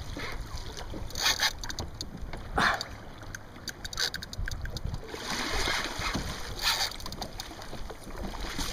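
Water sloshing and splashing against a kayak hull in short bursts, over a steady rumble of wind on the microphone.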